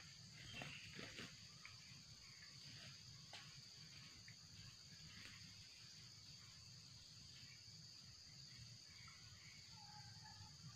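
Faint, steady high-pitched drone of insects in the undergrowth, with a few soft footsteps through leaf litter in the first second or so and a brief faint call near the end.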